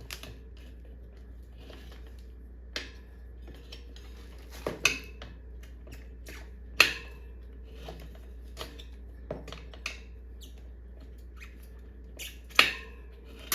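Steel tire levers clinking and scraping against a motorcycle wheel rim as they are walked around to pry the tire bead off: a dozen or so irregular sharp metal clinks, the loudest about 7 and 12.5 seconds in.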